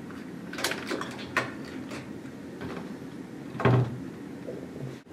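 Locker door latches clicking and rattling as their recessed handles are pulled, a few separate clicks followed by one louder thump of a locker door about three-quarters of the way through.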